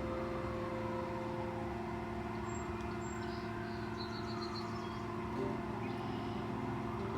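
Steady road traffic hum with a constant engine drone and vehicles swelling past and fading away, and a few faint high chirps.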